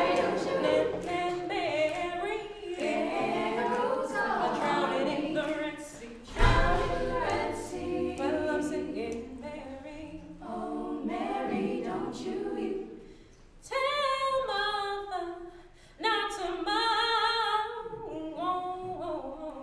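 All-female a cappella group singing: a solo voice over several backing voices. A low thump about six seconds in; near the end the solo voice sings long held notes with pauses and little backing.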